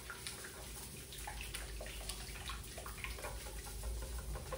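Wire whisk beating a runny egg mixture in a stainless steel bowl: quick, irregular strokes of wire clinking against metal, with liquid sloshing.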